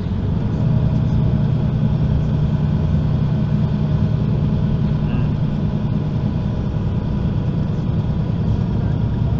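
Diesel engine of a Mercedes-Benz O530 Citaro articulated bus idling with a steady low hum.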